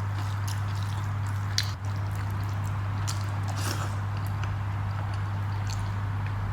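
Eating rice and dal by hand: small wet clicks and smacks of chewing and fingers in the food now and then, over a steady low hum.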